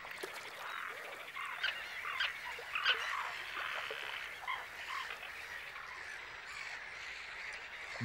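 Terns calling: many short calls overlapping in a busy chorus, thickest in the first three seconds and thinning towards the end.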